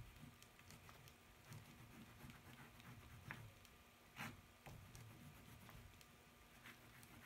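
Faint scratching of a yellow pastel being stroked over drawing paper, with small ticks throughout and a couple of sharper taps a little past halfway.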